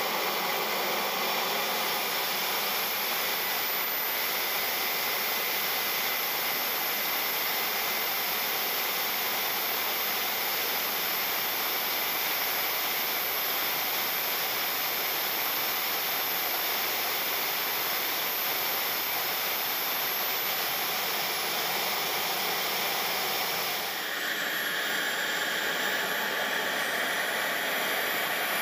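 JetCat 160SE model jet turbine of an RC A-4 Skyhawk running, heard from the camera on board the plane: a steady rushing noise with a thin high-pitched whine. About 24 seconds in, the sound changes abruptly and the whine shifts in pitch.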